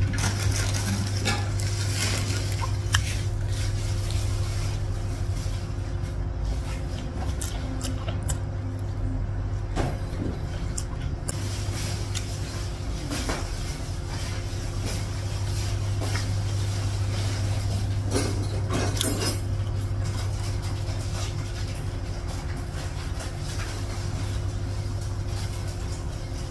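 Eating by hand: scattered small smacks, clicks and chewing noises over a steady low mechanical hum.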